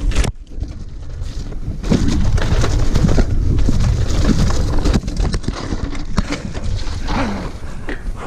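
Electric mountain bike descending a rough trail: tyres and frame clattering over the ground in a rapid run of clicks and knocks, with wind buffeting the chin-mounted action camera's microphone and the rider's heavy breathing.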